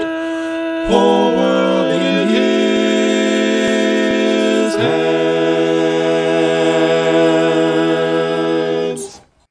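Male vocal quartet singing the closing phrase of a spiritual in close harmony, a cappella: two quick chord changes, then a long held final chord that cuts off about nine seconds in.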